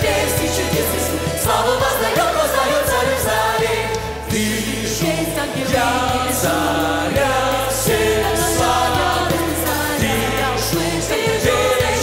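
Large mixed choir with two male lead singers singing a Christian worship song in Russian, backed by a band with steady bass and drums.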